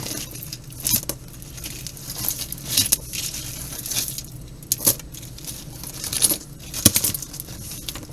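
Jewelry being handled: small metal pieces clinking and jingling among rustling, with a few sharp clicks about every two seconds.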